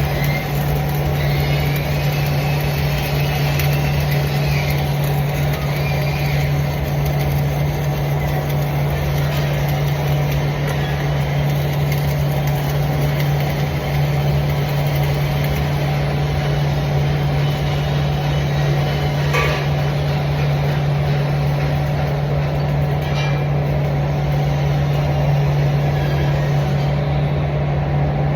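A machine running with a steady low hum at constant speed, like an engine idling, with a couple of brief clicks in the second half.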